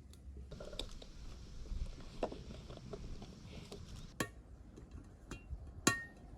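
Light clatter of tableware, with two sharp, briefly ringing clinks, the second near the end the loudest.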